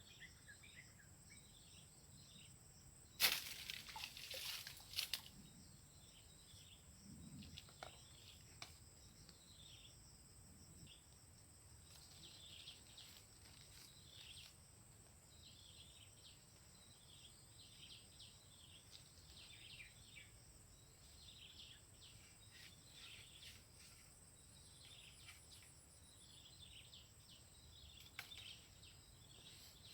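Outdoor ambience of birds chirping in many short falling calls over a steady high insect whine. A few seconds in, a loud burst of rustling and crackling lasts about two seconds.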